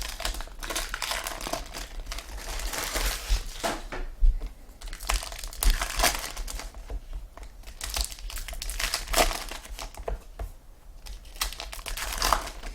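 Foil trading card pack wrappers being torn open and crinkled, with cards handled, in an irregular run of rustling and crackling.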